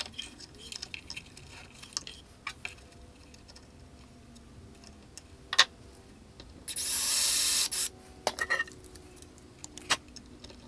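Light clicks and knocks of wooden blocks and a metal drawer slide being set against chipboard, then about seven seconds in a cordless drill runs into the chipboard for about a second, fixing the drawer slide.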